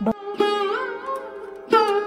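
Background music: a plucked string instrument playing slow, sliding notes over a steady drone, with a new note struck near the end.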